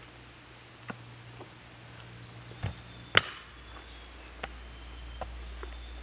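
Firewood being chopped or broken up by hand: a string of sharp, irregular chops, the loudest a little after three seconds in.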